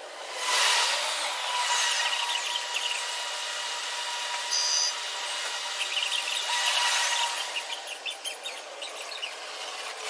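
Electric train running sound edited to resemble a maglev: a whining hiss with a steady high tone underneath, swelling twice, about a second in and again around seven seconds, each swell with sweeping rising and falling whines as a train passes.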